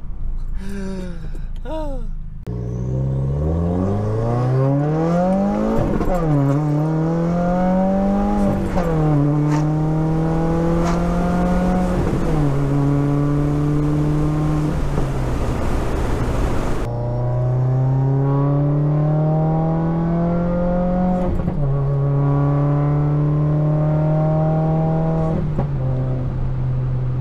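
2015 Subaru WRX's turbocharged 2.0-litre flat-four, breathing through a newly fitted catted TurboXS J-pipe, heard inside the cabin as the car pulls away. Its pitch climbs through two upshifts in the first several seconds, then settles into a steady cruising drone with a few small shifts in pitch. The exhaust is much louder and freer-flowing with the new J-pipe.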